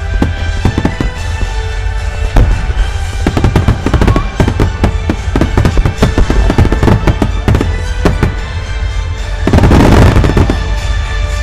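Starmine fireworks barrage: shells bursting in rapid succession, several bangs and pops a second, with the densest, loudest cluster of bursts about ten seconds in. Music plays along with the display.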